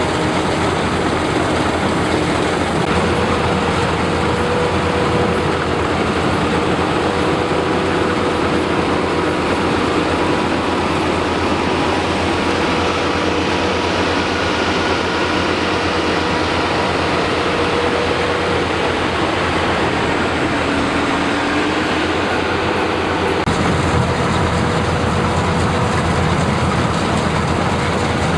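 Rice combine harvester running steadily under load: a loud, unbroken mechanical din of engine and threshing works with a few faint steady hums over it.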